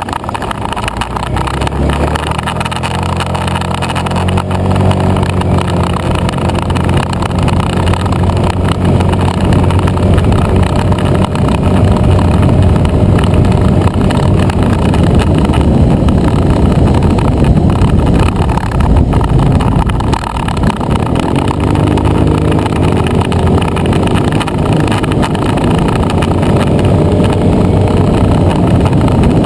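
Motor scooter engine pulling up to speed and then cruising steadily, under heavy wind noise on the microphone. About twenty seconds in the throttle eases briefly and the engine note drops, then climbs again as it picks back up.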